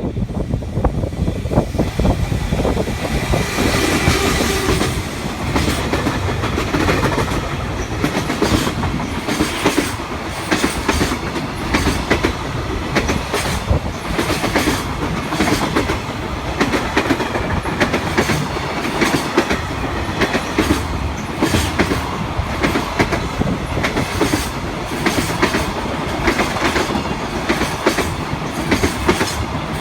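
JR Freight EF210 electric locomotive and its freight train passing at speed. The noise swells a few seconds in, then runs on as a steady clickety-clack of wagon wheels over rail joints.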